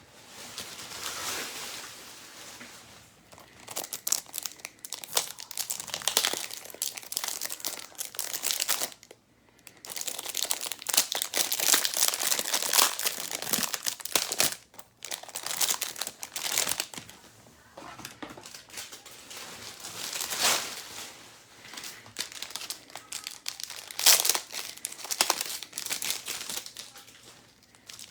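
Plastic wrapping crinkling and tearing in the hands, on and off with short pauses, as when cellophane is stripped from trading-card boxes and packs.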